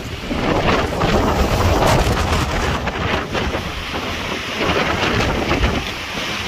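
Hurricane wind gusting hard and buffeting the microphone, with heavy rain; the low rumble surges and eases with each gust.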